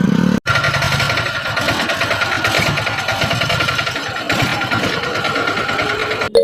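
An engine or motor running steadily with a fast rattle, starting after a brief cut about half a second in.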